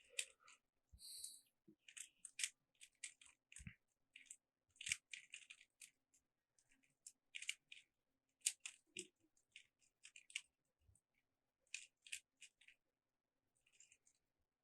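Rubik's Cube layers being turned by hand: quiet plastic clicks and rattles coming in irregular clusters with short pauses between them.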